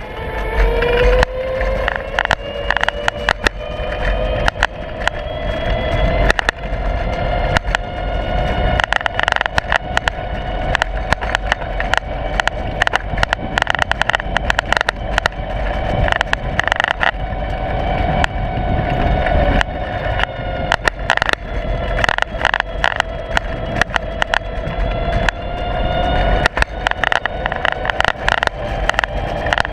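A motor's steady whine that climbs in pitch over the first few seconds, then drifts gently up and down as the speed changes, under constant sharp rattling and knocking from a loose camera mount shaken by the ride.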